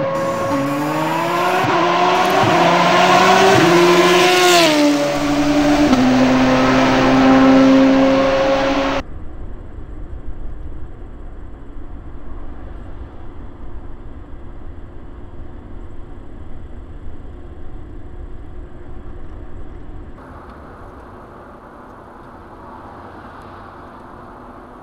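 Car engine revving sound effect, its pitch climbing and falling as if accelerating through gears, cutting off suddenly about nine seconds in. After it comes a steady, much quieter road hum inside the car, which drops lower again about twenty seconds in.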